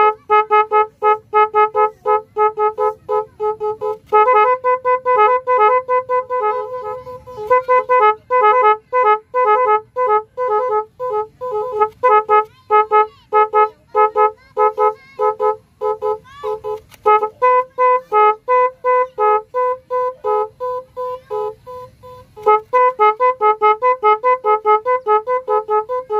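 Digital multi-tone 'magic horn' (a 22-sound electronic motorcycle horn) playing its electronic melodies: rapid runs of short beeping notes, with one held tone between about four and seven seconds in. The tune changes a few times as the horn's sounds are cycled.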